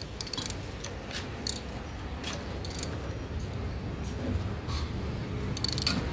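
Ratchet wrench with an 8 mm socket clicking as it loosens a bolt on a turbocharger housing, in scattered single clicks and then a quick run of clicks near the end.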